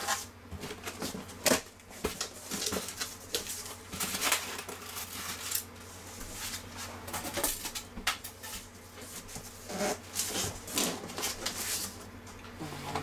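Irregular taps, clicks and rustles of a large cardboard box being handled, with a steady low hum underneath.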